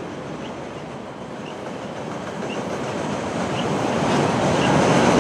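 Container freight train rolling across a steel truss rail bridge: a steady rumble of wheels and wagons that grows louder from about a second in.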